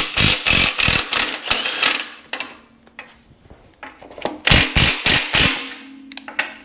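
Milwaukee cordless impact wrench hammering on a rusty front-suspension bolt in two bursts, one of about two seconds at the start and a shorter one about four and a half seconds in, as it breaks the bolt loose.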